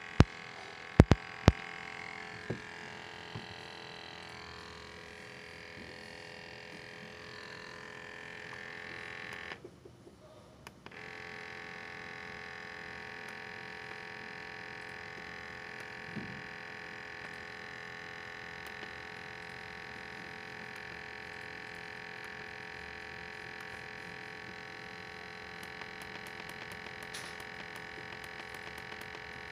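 Portable PID gas detector's built-in sampling pump running with a steady hum of several tones. It cuts out for about a second and a half around ten seconds in, then starts again. There are a few sharp clicks near the start, and light ticks of the keypad buttons being pressed near the end.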